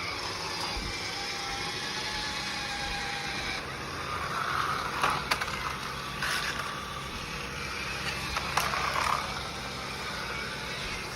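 Small battery-powered Magic Tracks toy car's electric motor whirring steadily, with a few sharp plastic clicks.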